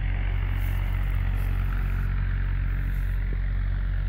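Steady low drone of piston aircraft engines running at a distance, holding an even pitch and level throughout.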